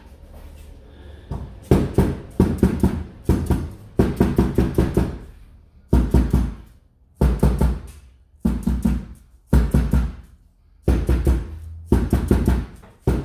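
Rubber mallet tapping a windshield glass pane down into its urethane-lined frame channel, in quick flurries of several taps with short pauses between, starting about a second and a half in.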